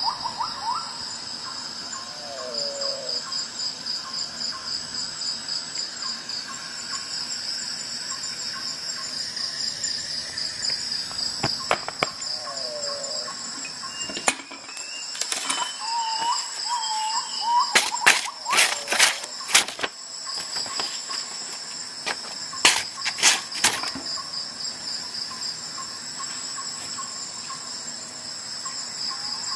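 Crickets chirping steadily in a fast even pulse, with a few short warbling calls now and then. A series of sharp clicks and taps comes in the middle of the stretch, the loudest about two-thirds of the way through.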